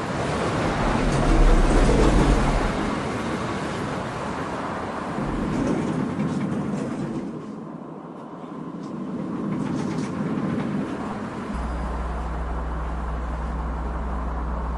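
Train running: a rumbling, rattling noise that swells and fades. A steady low hum comes in near the end and stops abruptly.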